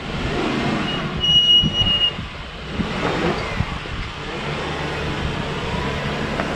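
4x4 engine running as the vehicle is driven slowly over a rough off-road trail section. A brief high, steady tone sounds for about a second, about a second in.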